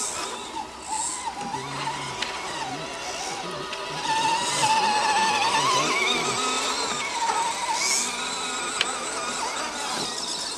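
Electric motor and gearbox of a scale RC crawler whining as it climbs, the pitch wavering up and down with the throttle and getting louder from about four seconds in.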